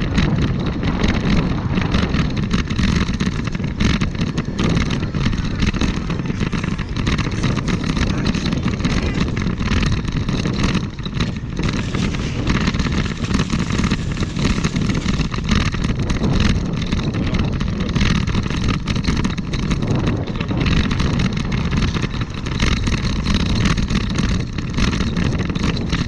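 Wind buffeting the microphone of a camera mounted on the handlebar of a moving bike: a steady, fluttering rumble.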